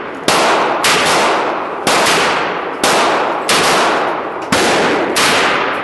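Seven gunshots from a firearm fired one after another at an uneven pace, roughly one a second. Each shot cracks sharply and leaves a long echoing tail.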